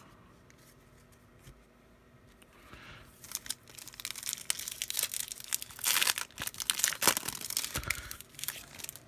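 A foil trading-card pack wrapper being torn open and crinkled by hand. The crackling starts about three seconds in and is loudest near the middle to late part.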